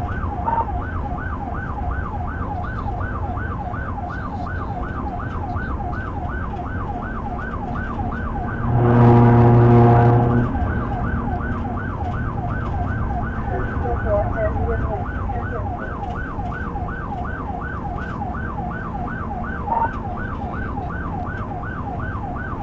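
Police patrol car's siren sounding a rapid yelp, about three to four rising-and-falling sweeps a second, over steady engine and road noise. About nine seconds in, a loud, low horn blast lasts about two seconds over the siren.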